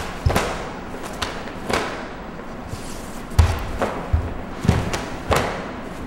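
Karate kata: bare feet thudding and stamping on a wooden floor, and the cotton gi snapping with each strike and kick. It is a string of sharp thuds and cracks at uneven gaps of about half a second to a second and a half.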